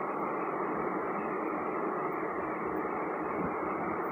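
Steady, even background noise, a low hiss-like rumble with no distinct events.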